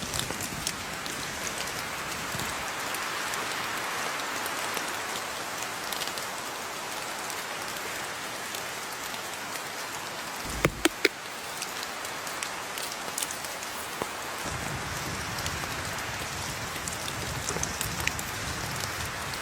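Steady rain falling in a continuous even hiss of drops. A little past halfway there is a quick cluster of three sharp, louder knocks.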